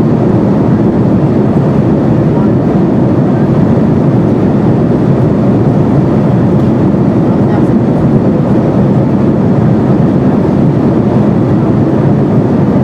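Steady, loud cabin noise inside an Airbus A330-200 airliner: an even rush of engine and airflow noise that neither rises nor falls.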